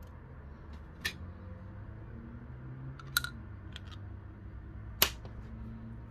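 Sharp plastic clicks and taps from a clear syringe barrel being handled and fitted together: one about a second in, a small cluster a little after three seconds, and the loudest near the five-second mark. A faint low hum runs underneath.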